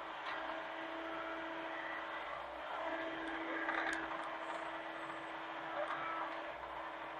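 Hitachi mini excavator's diesel engine running steadily with a constant hum, with a few faint clicks and scrapes.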